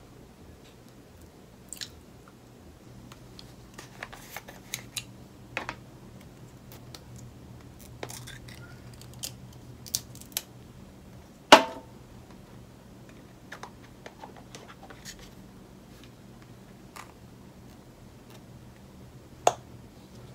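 Scattered small taps and clicks of hands working at a kitchen counter: fig slices set down on a plate and a plastic honey bottle handled, its flip-top cap clicking open near the end. One sharper knock with a brief ring comes a little past halfway, over a faint steady hum.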